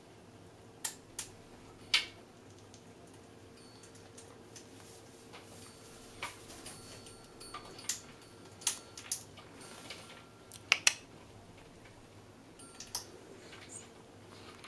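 Scattered light clicks and taps, about a dozen at uneven intervals with two in quick succession about two-thirds through, over a faint steady hum.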